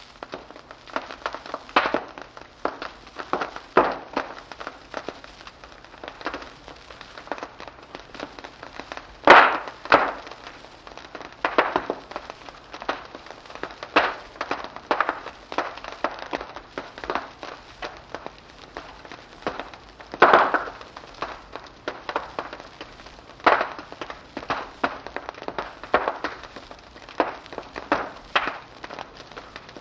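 Wood fire crackling in a fireplace: irregular sharp pops and snaps over a faint hiss, with the loudest pops about nine and twenty seconds in.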